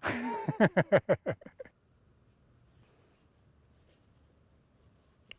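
A man laughs in a quick run of about a dozen short 'ha's lasting under two seconds. Then faint clicks of flat skipping stones being handled and set down, with one sharper click near the end.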